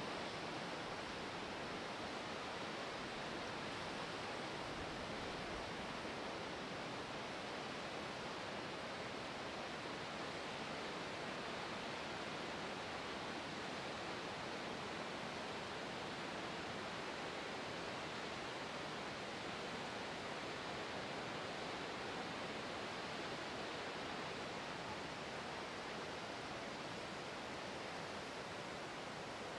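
Lower Yosemite Fall: the steady, unbroken rush of falling water.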